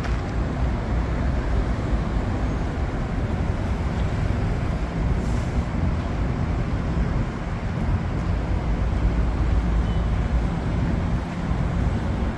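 Steady city road traffic: cars and buses running past in a continuous low rumble.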